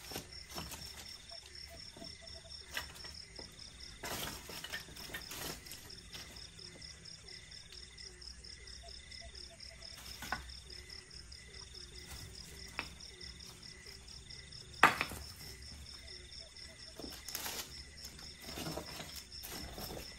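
Debris being cleared off littered ground by hand: scattered clinks and clatters as pieces are picked up and tossed aside, the loudest about 15 seconds in. Crickets chirp steadily underneath.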